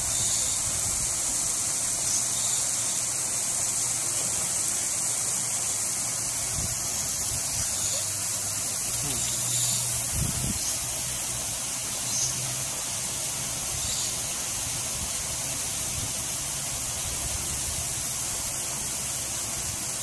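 Steady high hiss of outdoor background noise with a faint low hum under it, rather like running water; no clear animal calls.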